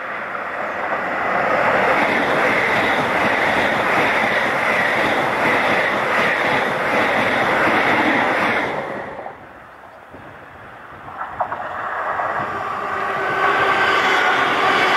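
A train passing close by at speed with a loud, steady rush of wheel and rail noise, which cuts off sharply about nine seconds in. After a short lull another train is heard approaching, its sound building with a steady hum.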